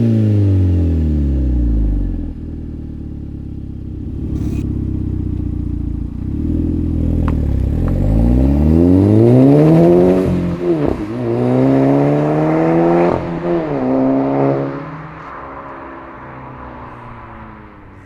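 MK5 Golf GTI's turbocharged 2.0-litre four-cylinder engine through a Cobra turbo-back decat exhaust. The revs fall at the start, settle low, then rise and fall several times, and the engine fades away over the last few seconds.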